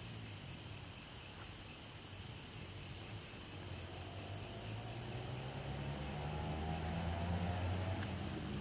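Steady chorus of crickets calling in the night, a continuous high-pitched trill. A low steady hum grows louder from about halfway through.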